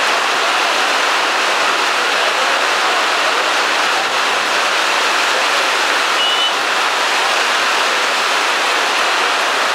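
Heavy rain falling steadily, a loud, even hiss.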